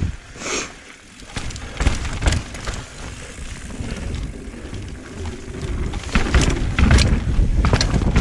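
Mountain bike riding down a trail feature: tyres rolling over dirt with scattered knocks and rattles, and a low rumble that grows louder over the last couple of seconds.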